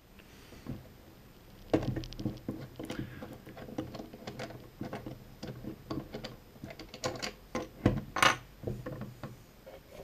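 Hands handling a Parrot Skycontroller: irregular plastic clicks and knocks as its antenna panel is loosened at the central mount and moved, starting a couple of seconds in, with the sharpest knocks near the end.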